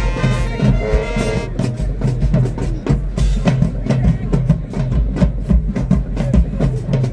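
Marching band: the horns hold a chord that breaks off about a second and a half in, then the drumline plays on alone in a fast, steady cadence of snare and bass drum strokes.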